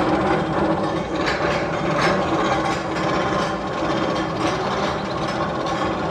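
Steady mechanical running noise with a low hum and irregular sharp clicks and clacks.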